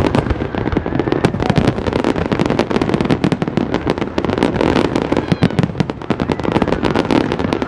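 Large aerial fireworks display: a dense, continuous run of bangs and crackles from shells bursting in quick succession, with no pause.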